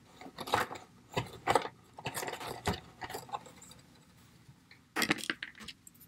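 Small hard-plastic toy accessories clicking and rattling as they are picked out of a clear plastic packaging tray, with a quick cluster of clicks about five seconds in.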